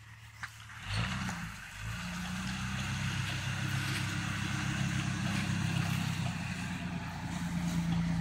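Jeep engine pulling through a deep off-road rut: it revs up about a second in, again just before two seconds, then keeps running under steady load and grows gradually louder as the Jeep comes closer.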